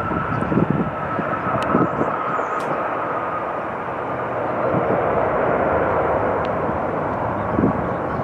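Jet airliner engines running with a steady whine that falls slowly in pitch, over a broad rumble. Wind buffets the microphone a few times.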